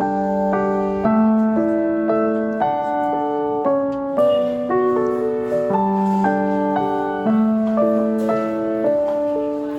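Soft, gentle background piano music, a slow run of sustained notes.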